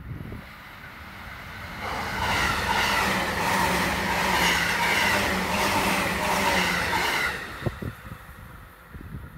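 Electric passenger train passing close by at speed: wheels rumbling and clicking on the rails under a steady hum. It builds up about two seconds in, holds for about five seconds, and fades quickly as the last car goes by.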